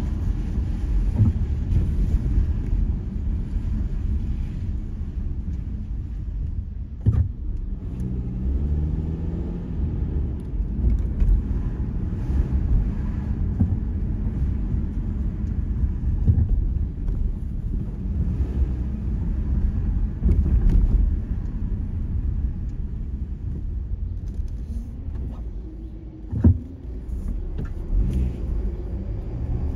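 Car driving, with a steady low road and engine rumble heard from inside the cabin. Two brief knocks come about seven seconds in and again near the end.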